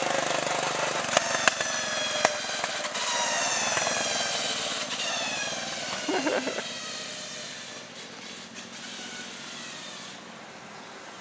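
Small garden tractor engine running as the tractor drives past and away. Its pitch falls and it fades into the distance. A few sharp clicks come in the first couple of seconds.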